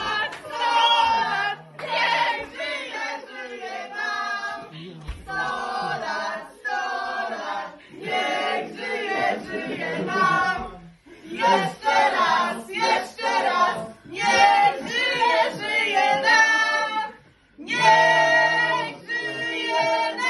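A group of people, women and a child among them, singing a birthday song together in phrases with short pauses.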